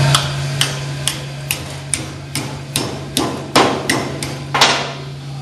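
A hammer striking a welded metal test coupon clamped to a metal welding table, a dozen or so sharp metal blows about two a second, the loudest about three and a half and four and a half seconds in. The blows bend the coupon over for a root or face bend test of the weld.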